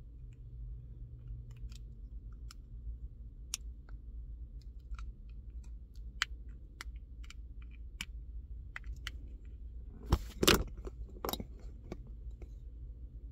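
Small scattered clicks and scrapes of a flat-blade screwdriver prying at the plastic clips of a Toyota key fob case, with a few louder clicks and knocks about ten seconds in.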